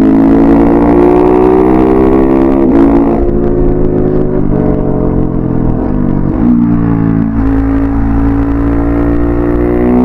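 KTM 690 SMC-R single-cylinder engine through an Arrow Thunder slip-on exhaust with its dB-killer fitted, ridden on the road. The revs climb, break briefly near three seconds, and fall away gradually until about six seconds. They pick up briefly around six and a half seconds, then hold steady at a cruise.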